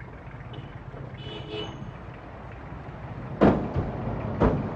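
Two car doors slamming shut about a second apart, over a low steady rumble of the car.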